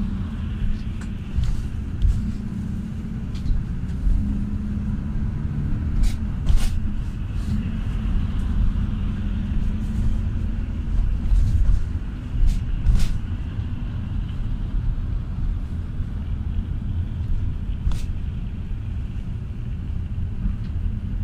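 Cabin noise inside a GAZ A64R45 minibus under way: a steady low drone of its Evotech engine and the tyres on the road, with a few sharp clicks and rattles from the body.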